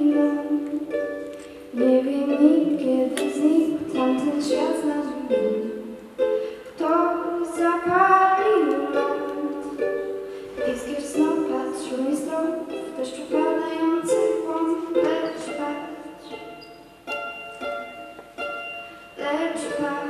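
A ukulele playing a slow song, with a woman's voice singing the melody over it.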